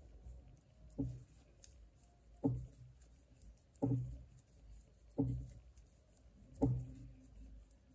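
Metal knitting needles working purl stitches in wool yarn: five soft, low knocks, one about every second and a half, one per stitch.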